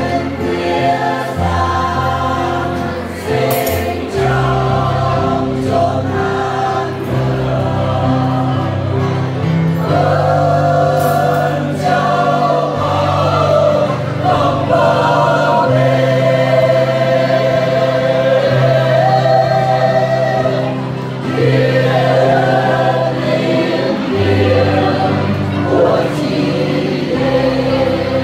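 Mixed choir of women and men singing a Christmas carol, accompanied by an electronic keyboard and an acoustic guitar.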